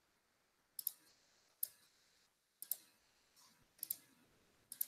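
Faint, sharp clicks of a computer mouse, mostly in quick pairs, about one every second.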